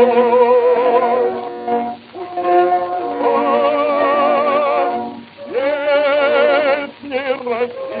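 Music from an early gramophone record: a melody of long held notes with strong vibrato, in phrases broken by short dips. It sounds thin, with no treble above about 5 kHz.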